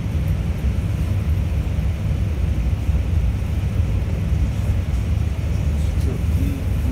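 Steady low rumble of a stopped diesel push-pull commuter train, heard from inside a C3 bilevel coach: the idling locomotive and the coach's ventilation, with no movement noise.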